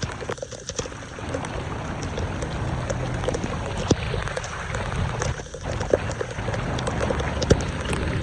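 Floodwater pouring and rushing into a storm drain, a steady wash of noise with scattered short clicks and knocks.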